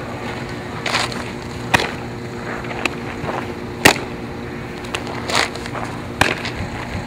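Several sharp pops of a softball smacking into a catcher's mitt, the loudest about four seconds in, over a steady low hum.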